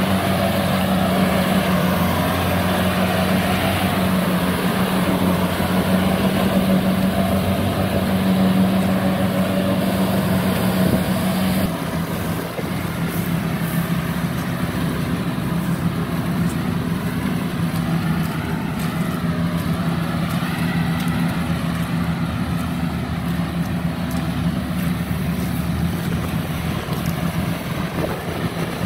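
Kubota DC70 combine harvester's diesel engine running steadily as it harvests rice in soft, muddy ground. About twelve seconds in, the sound drops suddenly and runs on quieter, with the machine farther off.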